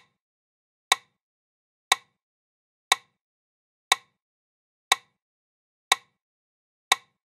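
Metronome set to 60 beats per minute, ticking once a second with short sharp clicks and silence between them.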